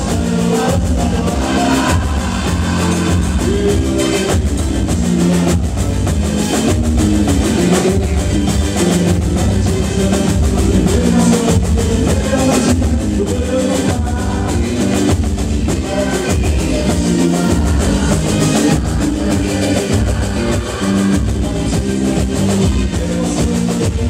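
Live boi-bumbá band playing a toada: a steady drum and percussion beat under pitched melody lines, loud and unbroken.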